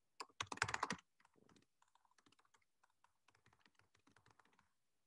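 Typing on a computer keyboard: a quick, louder run of keystrokes in the first second, then softer, scattered keystrokes that stop near the end.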